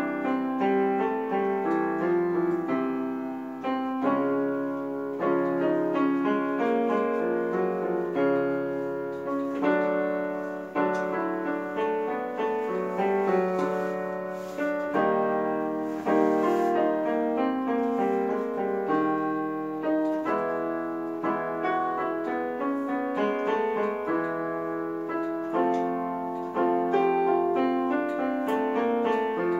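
Digital keyboard on a piano voice playing a scale-exercise accompaniment for singing practice: a steady stream of struck notes and chords in short phrases.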